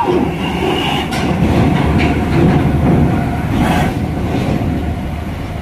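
Tour bus driving up a ferry's steel loading ramp: its engine pulling under load with a heavy rumble and clatter of the steel ramp plates under the wheels, loudest about two to three seconds in and easing off toward the end.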